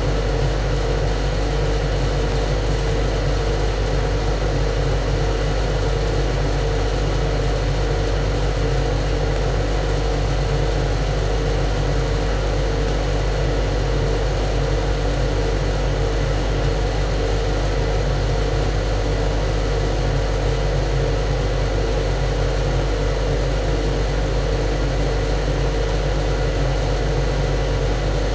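Boat's engine-room machinery running steadily: a loud, unbroken drone with a strong low hum and a steady mid-pitched tone over it.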